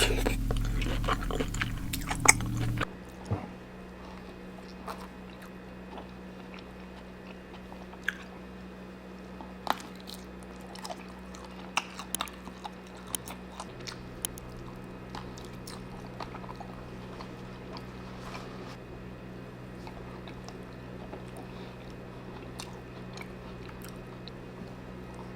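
Close-miked eating of a mussel seafood boil: chewing and mouth sounds with scattered sharp clicks. The first few seconds are louder with a low hum under them, then the sound drops to quieter chewing.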